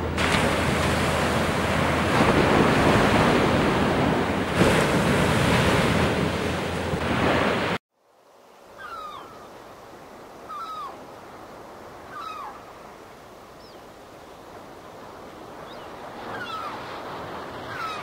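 Surf washing and breaking with wind, cutting off abruptly about eight seconds in. Then softer surf, over which a bird gives short falling calls about every one to two seconds.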